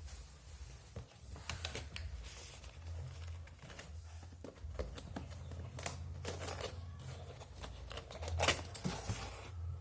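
Packaging and microphone parts being handled during an unboxing: irregular rustling, crinkling and small clicks, with a steady low hum underneath.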